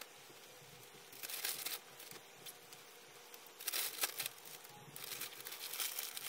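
Plastic mailing bag crinkling as clothes are pushed into it, in short bursts: about a second in, near four seconds, and again through the last second or so.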